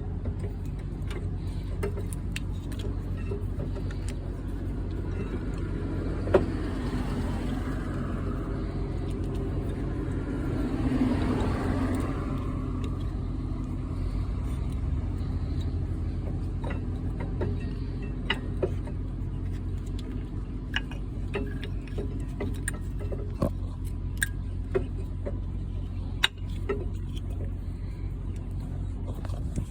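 Scattered light clicks and taps of rear brake parts and tools being handled, over a steady low hum. A vehicle passes, swelling and fading about ten to twelve seconds in.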